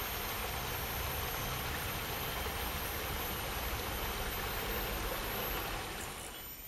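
Steady forest ambience: an even rushing noise with thin, unbroken high insect tones above it, fading a little near the end.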